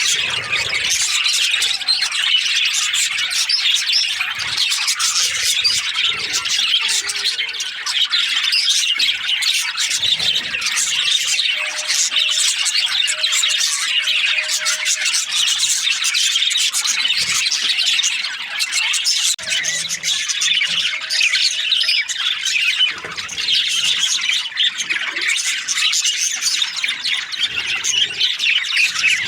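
Budgerigars chattering: a dense, unbroken stream of quick high chirps and warbles.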